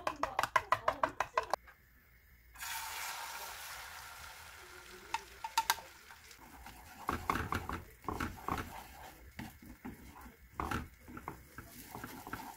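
Chopsticks whisking eggs in a plastic cup, with quick, even tapping strokes at about six a second. After a short pause, beaten egg hits a hot frying pan and sizzles, the sizzle slowly fading. From about seven seconds in, chopsticks stir and scrape the setting egg in the pan.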